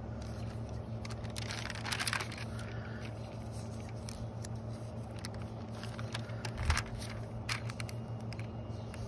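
Paper catalog pages being turned by hand: a rustle of paper about two seconds in and another with a few light clicks and scrapes near the end, over a steady low hum.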